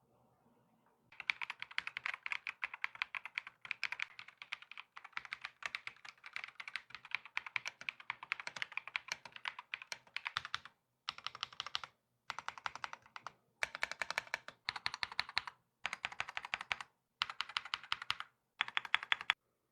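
Fast typing on a mechanical keyboard: a dense run of rapid key clicks starting about a second in and lasting about ten seconds, then a series of short bursts of typing, each about a second long, separated by brief pauses.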